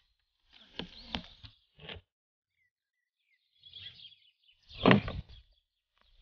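A spoon clicking and scraping against a ceramic bowl as it stirs a sticky candy mixture, a few faint bird chirps, then a single louder knock about five seconds in.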